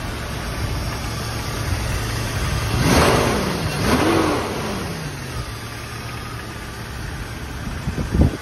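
Jeep Cherokee 4.0-litre straight-six engine, freshly swapped in, idling steadily. It is revved twice in quick succession about three seconds in, the pitch rising and falling each time before settling back to idle. Near the end there is a burst of wind noise on the microphone.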